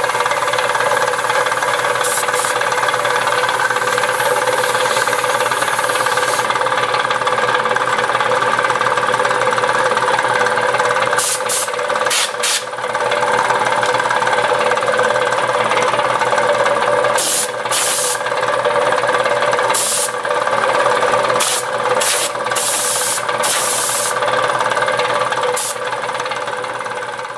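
Restored belt-driven reciprocating air compressor running under its electric motor: a loud, steady mechanical hum and clatter, with short bursts of hissing every few seconds.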